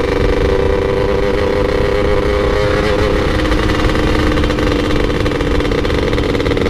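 Motorcycle engine running at a steady pitch while riding at an even speed, with wind rumble on the microphone.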